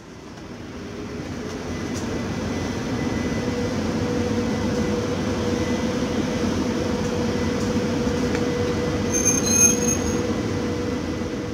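PKP EP07 electric locomotive moving slowly with its coaches while shunting: a steady rumble of wheels on rail with a held motor hum, growing louder as it approaches. A short high wheel squeal comes about nine seconds in.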